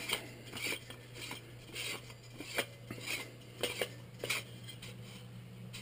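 Irregular light metal clicks and scrapes as a free-float quad rail is turned by hand and threaded onto an AR-15's barrel nut, over a faint steady hum.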